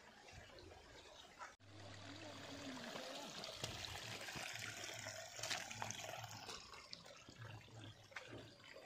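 Faint trickle of rainwater running over rocks and through mud. It is fuller after a brief break about one and a half seconds in.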